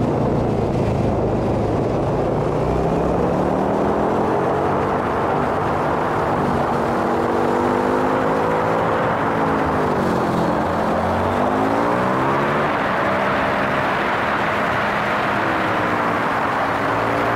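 V-twin motorcycle engine running under way, its revs rising and falling again and again as the bike works through curves, with steady wind and road noise.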